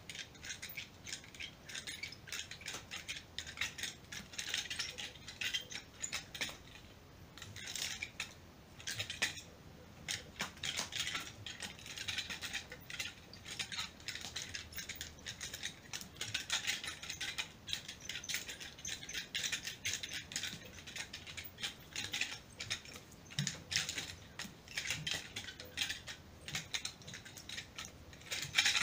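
Nunchucks being swung and twirled: their metal chain rattles and clicks rapidly and unevenly, with a few short pauses.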